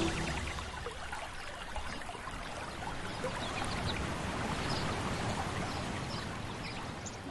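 Running water, a steady trickling and splashing like a small stream.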